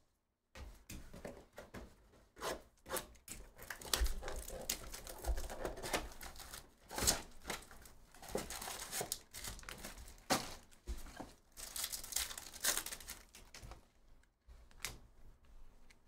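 Hands opening a cardboard trading-card box and crinkling and tearing open foil card packs: irregular rustling, crinkling and tearing with small clicks and knocks.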